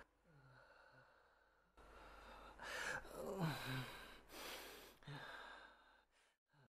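A man sighing and breathing heavily, several long breaths between about two and five seconds in, some with a low falling moan.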